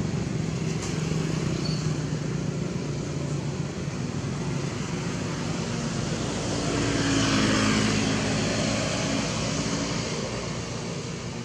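A motor vehicle's engine running steadily, growing louder for a moment about seven seconds in as it passes.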